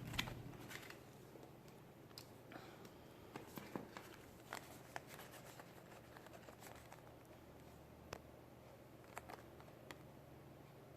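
Near silence: room tone with a faint steady hum and scattered faint ticks and rustles.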